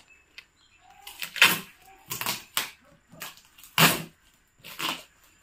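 Packing tape being ripped off a cardboard parcel box in about five short tearing strokes, roughly one a second.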